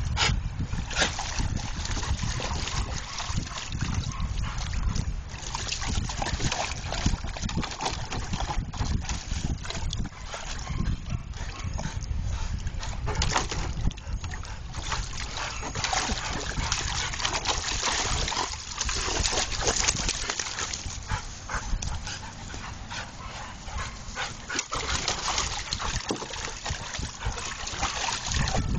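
Two large dogs playing in a water-filled plastic wading pool: water splashing and sloshing in irregular bursts, with dog vocalising mixed in.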